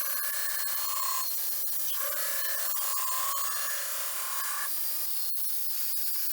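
Belt grinder grinding the bevels into a steel sword blade: a steady abrasive hiss with a ringing tone that comes and goes as the blade is pressed to the belt in passes, one short pass at the start and a longer one from about two seconds to nearly five.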